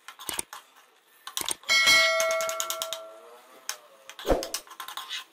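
Steel ladle clicking and scraping against a karahi as thick curry is stirred. About two seconds in, a clear bell-like metallic ring sounds and fades over about a second and a half.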